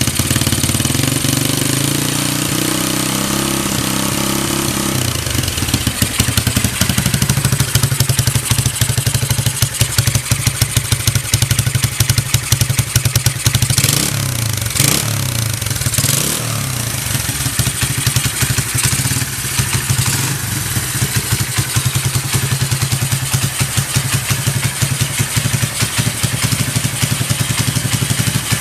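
Kawasaki Z250LTD motorcycle engine running, its speed falling over the first few seconds and then settling into a steady idle, with a few short noises around the middle. The idle is stable with no abnormal noise.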